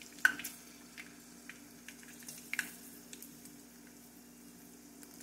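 Dried fish frying in hot oil in a small saucepan: a faint, steady sizzle with scattered small crackles, and a sharp click near the start and another about halfway through.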